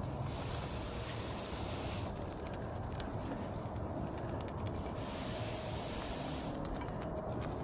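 A hissing noise comes twice, each time for a little under two seconds, with light clicks in between.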